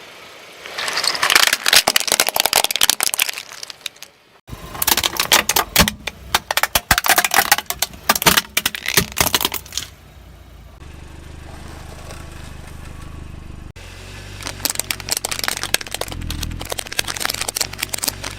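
Car tyres rolling over and crushing brittle objects: dense crackling, snapping and cracking in several runs, with the car's engine running low underneath.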